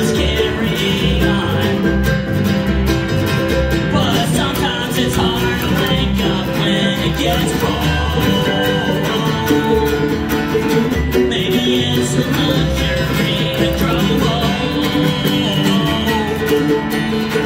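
Acoustic string band playing live: upright bass, acoustic guitar and mandolin, with a man singing.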